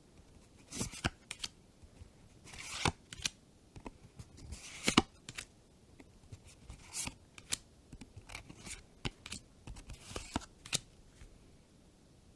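Magic: The Gathering trading cards handled one after another in the hand: short swishing slides of card against card, with irregular sharp clicks and taps. The loudest slide comes about five seconds in.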